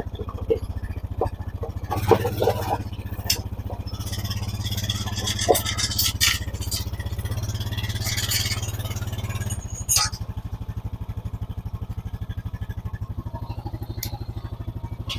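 ATV (four-wheeler) engine running at low speed while backing a log on a log arch, with scattered clanks and scrapes from the log and arch. About ten seconds in the engine drops back to a quieter idle.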